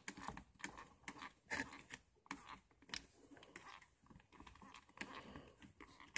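Faint, scattered clicks and rustling from a hand wrapped in a knit hat working a trigger spray bottle of rust-dissolver gel.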